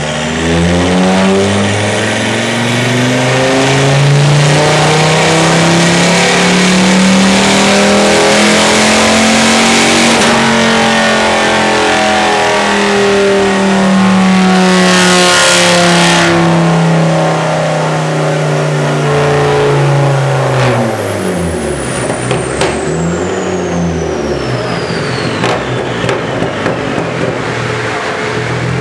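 Turbocharged Ford Focus ST with a very loud screamer-pipe exhaust doing a full-throttle power run on a rolling road. The engine note climbs for about ten seconds, holds high, then drops off about twenty seconds in, with a rising and falling high whine through the run. Sharp pops and crackles follow as it winds down.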